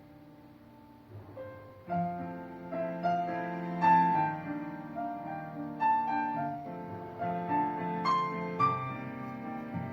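Piano music played through the built-in speakers of a Panasonic TH-55MZ1000W OLED TV. A held chord fades away, then new notes come in about a second in and the playing grows fuller from about two seconds in.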